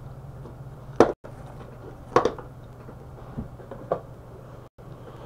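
A few short knocks as a camping lantern is handled and set down on a desk, the loudest about two seconds in, over a steady low hum.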